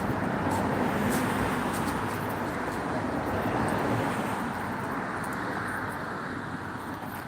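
Road traffic noise: the steady sound of vehicles' engines and tyres, easing off slightly near the end.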